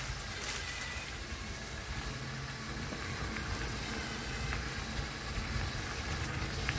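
Steady low rumble of wind and movement noise on the microphone as it travels along a trail.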